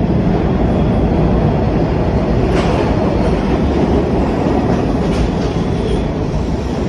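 New York City subway train pulling into the station: loud, steady rolling noise of its wheels on the rails, easing slightly near the end.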